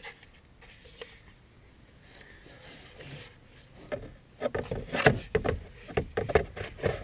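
Plastic knocking and scraping as a replacement blower motor with its squirrel-cage fan is worked by hand into the plastic blower housing. It starts about four seconds in as a quick run of knocks.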